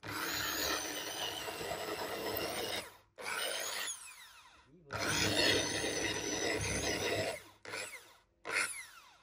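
Restored Makita electric hand drill boring into a block of wood. The motor runs under load in three long spells and then two short bursts, and its pitch falls as it winds down after several of them.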